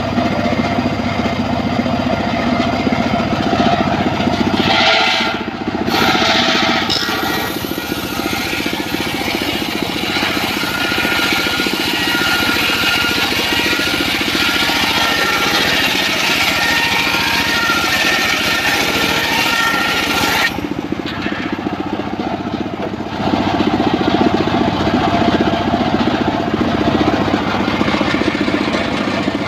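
Homemade engine-driven circular sawmill running, its large blade ripping a plank of old mahogany: a steady engine drone under a high cutting whine. The whine drops out briefly twice, about five seconds in and again past twenty seconds, while the blade runs free between cuts.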